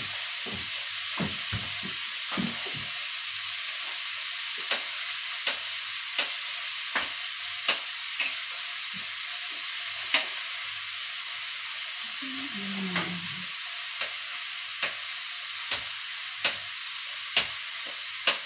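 Seafood frying in hot oil in a pan, a steady sizzle, with a utensil clacking against the pan about once a second as it is stirred.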